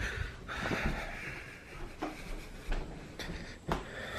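Footsteps and a few scattered clicks and knocks as a hinged back door is unlatched and swung open.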